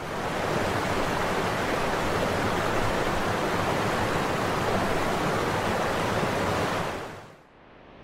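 Whitewater of Perunthenaruvi waterfall rushing over rocks, a steady loud rush of water that fades out near the end.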